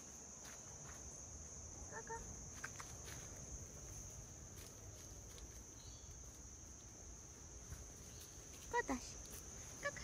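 Steady high-pitched insect chorus, with soft footsteps on a leaf-littered trail. A couple of brief vocal sounds come near the end.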